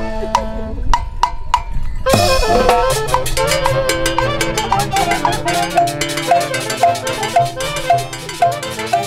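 Andean orquesta music: for about two seconds only sharp percussion strikes sound, then the full band comes in with sustained melody notes over a steady beat.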